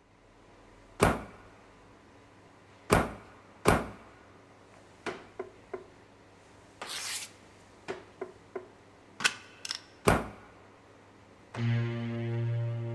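Sharp knocks and clicks at uneven intervals, with a brief hiss about seven seconds in, then a sustained keyboard chord near the end: snippets of video-clip soundtracks triggered by sensors in a full-body suit, which jump the clips to set points in time to make music.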